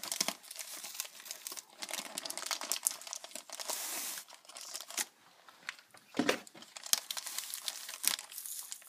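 Clear plastic packaging crinkling and tearing as parts are worked loose from a cardboard box insert, an irregular crackle with a few sharper snaps.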